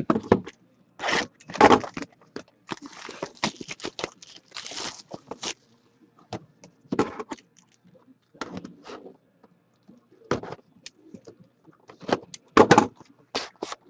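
A sealed cardboard trading-card box being handled and opened by hand: irregular scrapes, taps and tearing of the box and its wrapping, loudest about a second in and near the end.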